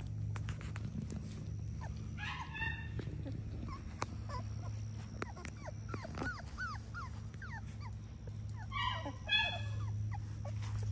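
Three-week-old Labrador puppies whimpering and squeaking: two longer high-pitched whines, about two seconds in and near the end, with short squeaks between them. A steady low hum runs underneath.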